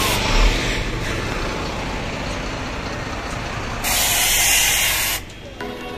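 Heavy truck running, with a loud hiss of released compressed air lasting about a second and a half, starting around four seconds in.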